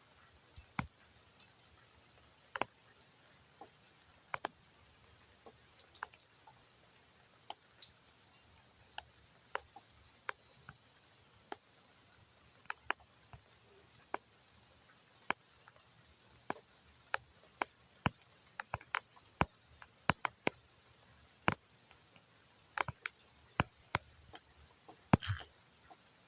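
Raindrops landing one by one on a hard surface as sharp, irregular ticks over a faint hiss. They are sparse at first and come more often later on, with one louder, fuller splat near the end.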